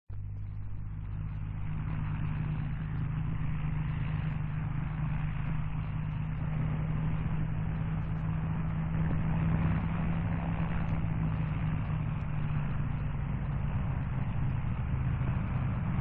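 Avro Lancaster heavy bombers taking off, their four Rolls-Royce Merlin V12 engines giving a steady deep multi-engine drone. The sound swells over the first second or two and then holds.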